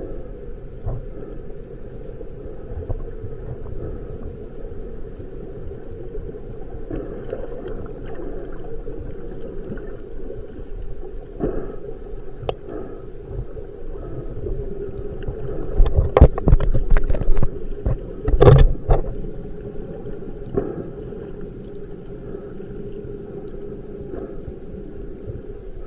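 Underwater sound picked up through an action camera's waterproof housing: a steady muffled drone, with a cluster of loud knocks and thumps about sixteen to nineteen seconds in.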